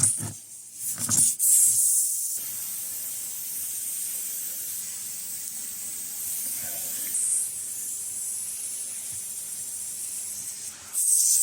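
Air hissing steadily, louder for its first second and again just before it cuts off abruptly near the end.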